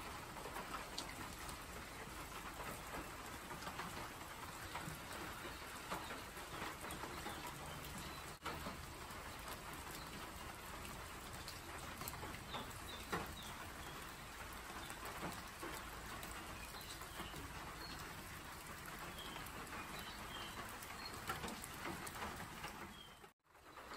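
Steady rain falling on forest foliage, with scattered louder drips.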